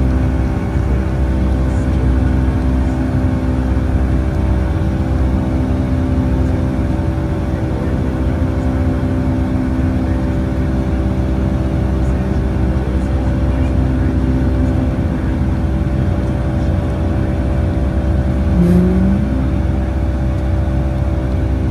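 Steady engine and airflow noise inside the cabin of a Boeing 757-200: a constant drone with several steady tones over a low rumble. A short rising tone sounds briefly near the end.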